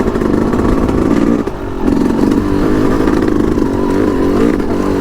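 Yamaha YZ250X single-cylinder two-stroke dirt bike engine running at low revs as the bike crawls a rocky trail, with a brief drop in throttle about a second and a half in.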